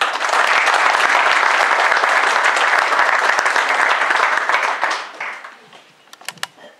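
Audience applauding, a dense steady clapping that dies away about five seconds in, with a few last single claps.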